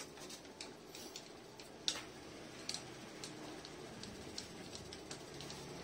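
Faint, irregular light clicks and ticks over quiet room noise, with one sharper click about two seconds in.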